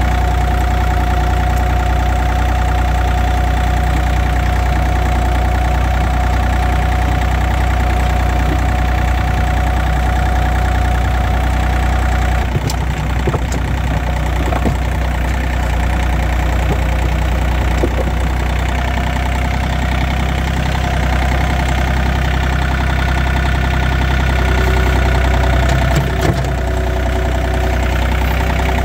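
Compact tractor engine running steadily under load while its front-loader bucket pushes snow, heard from the operator's seat, with a couple of brief knocks partway through.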